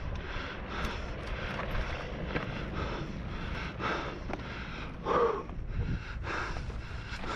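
A mountain biker breathing hard while pedalling: quick panting breaths about twice a second, with one louder breath about five seconds in, over a low rumble of wind on the microphone.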